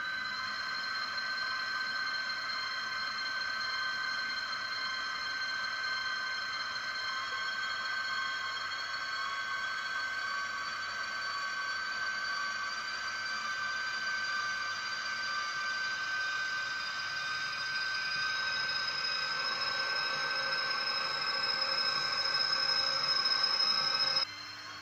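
Model ZSSK class 381 (Siemens Taurus) electric locomotive's sound decoder playing the traction-motor whine of a train pulling away: several steady tones, one of them slowly rising in pitch as it speeds up. It grows louder toward the end and cuts off abruptly.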